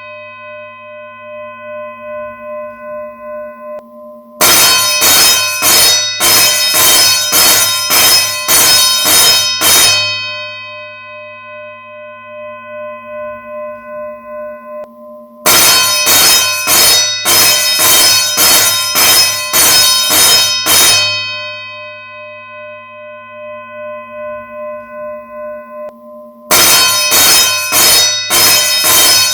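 School bell ringing in repeated bursts: about six seconds of quick strikes, then a bell tone fading out over about five seconds, before the next burst starts. It rings out at the start and begins again three times.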